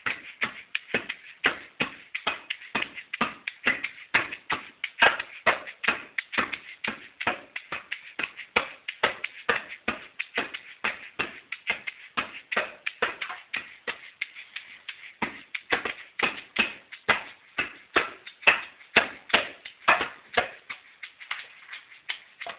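Small djembe played with bare hands in quick, fairly even strokes, about three a second. The beats thin out and drop in level for a couple of seconds about halfway through, then come back loud.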